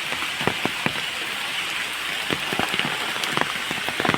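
Steady rain falling, with many separate heavy drops striking close by throughout.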